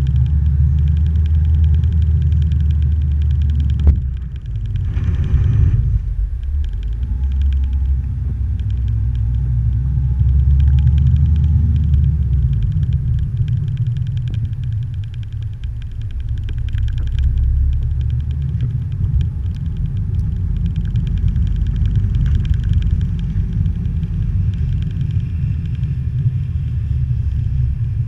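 Low rumble of a small vehicle moving over a snow-covered road, with a fine rapid rattle throughout and a brief hissing scrape about four seconds in.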